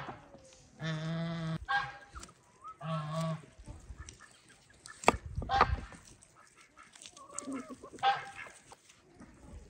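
Farmyard poultry calling: a string of loud honking calls, one held for nearly a second and the rest shorter, coming every second or two. A single sharp knock sounds about five seconds in.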